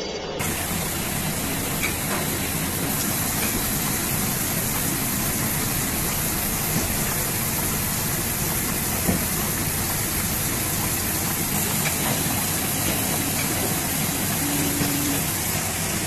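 Plastic color mixer running: the motor-driven blade in the stainless-steel drum churns a load of white plastic granules, giving a steady rushing hiss over a low motor hum.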